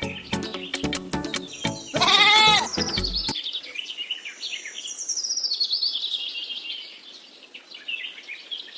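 Background music with a long bleat from a goat or sheep about two seconds in; a little after three seconds it cuts off abruptly and gives way to birds chirping.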